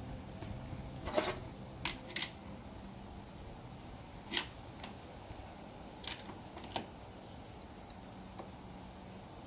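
About six light clicks and knocks spaced irregularly, from hand tools being handled, over a faint steady hum.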